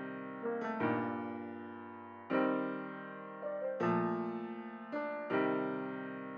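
Background music: slow piano chords, each struck and left to ring out and fade.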